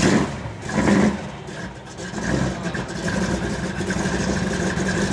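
A Pontiac GTO's V8 engine just fired up, revved twice near the start, then running steadily with a gnarly sound.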